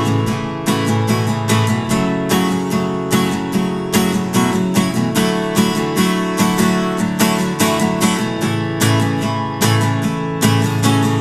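Acoustic guitar strumming chords in a steady rhythm, the instrumental opening of a country-tinged indie song.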